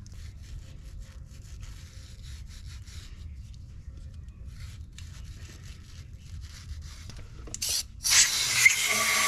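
Faint rubbing and scraping of a rag on the metal diaphragm seat of a diaphragm pump, with small clicks. About eight seconds in, a short puff and then a loud, steady hiss of compressed air from an air blow gun blowing out the pump housing.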